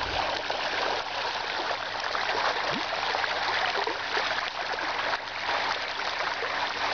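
Many small splashes running together into a steady churning of water: a shoal of baitfish breaking the river surface as golden dorado feed among them.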